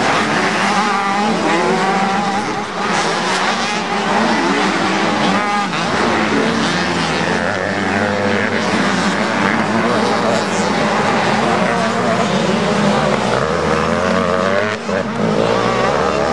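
Several 85cc two-stroke motocross bikes racing on a dirt track, their engines revving up and down so that the pitch keeps rising and falling, several engines overlapping.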